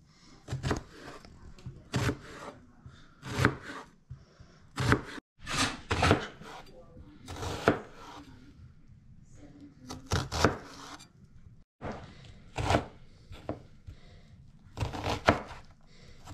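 Kitchen knife chopping an onion on a plastic cutting board: irregular sharp knocks of the blade on the board, roughly one a second, some in quick pairs.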